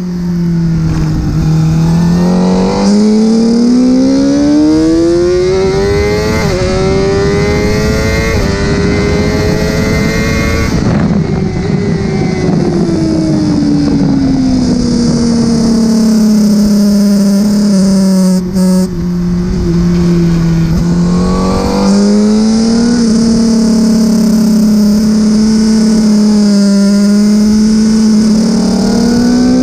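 Honda CBR1000RR-R Fireblade's inline-four engine under hard acceleration on track. It rises in pitch through the gears with brief steps at the upshifts, then falls slowly off the throttle for a corner, and pulls up through the gears again near the end.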